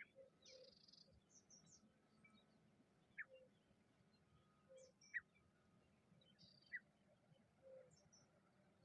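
Faint bird chirps: a few short, sharp notes sliding downward, a second or two apart, with softer high twitters in between.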